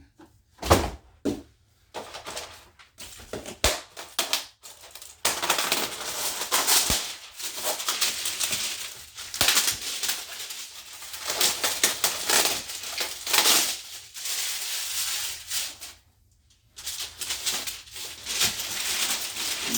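Cardboard box and its packaging being opened and handled, rustling, scraping and crinkling in irregular bursts, with a sharp knock about a second in.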